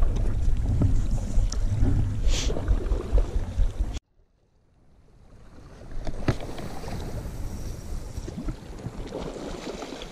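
Wind buffeting the microphone over sea wash, with small ticks from a spinning reel being wound. About four seconds in the sound cuts off abruptly, then fades back in to lighter wind and waves washing against the rocks.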